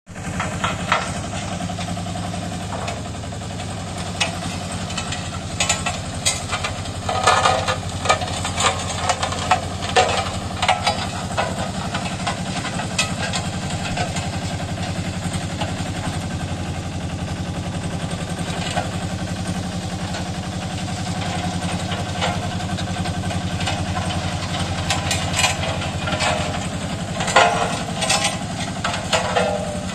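Bomag BW 120 AD-3 tandem roller's diesel engine running steadily as the roller drives slowly, with sharp clatters now and then, clustered a few seconds in and again near the end.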